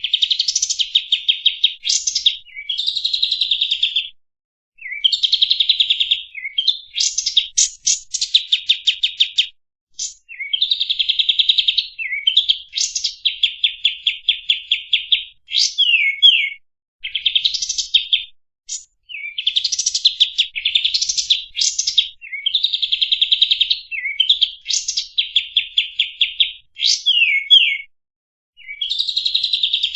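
Kapas tembak songbird singing a varied song: phrases of fast rattling trills and sharp rising whistles, separated by brief pauses.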